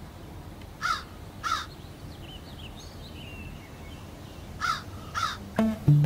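A crow cawing twice, then twice more a few seconds later, each caw short and falling in pitch, with faint small-bird chirps in between. Plucked string music starts just before the end.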